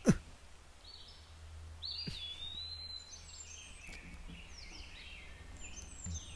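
Birds chirping outdoors: many short, high whistled notes and glides, thickest from about two seconds in, over a low steady hum. A brief sharp sound comes right at the start.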